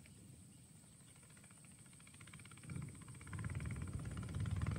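A low rumble that grows louder about halfway through, with a faint, steady high-pitched whine behind it.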